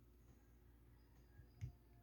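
Near silence over a low room hum, broken by a faint click and then a short soft knock about one and a half seconds in, the kind of small handling noise made while unboxing a figure.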